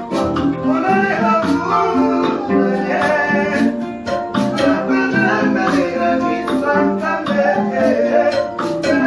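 Congolese band rehearsing live: guitars and keyboard playing with several voices singing together over a steady percussion beat.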